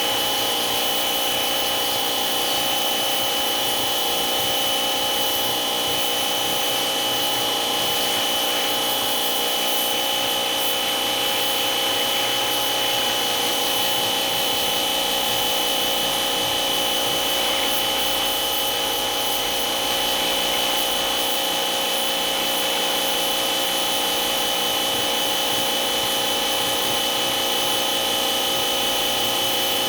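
A steady machine running with a constant high whine and no change in speed throughout.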